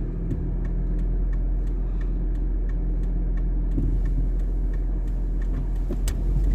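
Steady low rumble of a Toyota Prius driving on a snowy road, heard inside the cabin, with faint regular ticks about three times a second.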